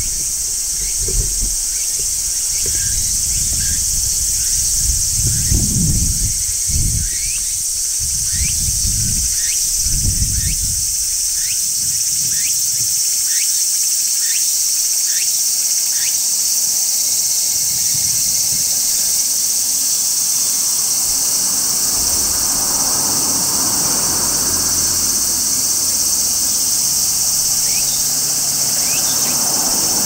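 Large brown cicadas (Graptopsaltria nigrofuscata) shrilling in a steady, continuous chorus. Short rising chirps come about once a second through the first half and twice near the end. There are low thumps in the first ten seconds and a faint low rumble in the last third.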